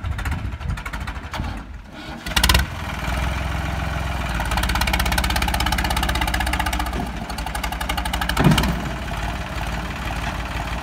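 Diesel tractor engines running hard under load in a tractor tug-of-war, a New Holland 3630 pulling against a Sonalika 750. A loud surge comes about two and a half seconds in, then steady hard running, and another brief surge about eight and a half seconds in.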